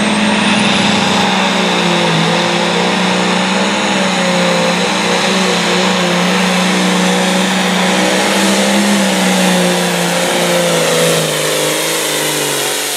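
Hot farm class pulling tractor's diesel engine running flat out under load as it pulls a weight-transfer sled down the track, its pitch wavering a little as the load builds. The engine eases off about eleven seconds in.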